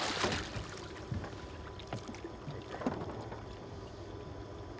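A big flathead catfish splashing at the surface right at the start as it is grabbed beside the boat, then water lapping against the hull with a few light knocks about 2 and 3 seconds in.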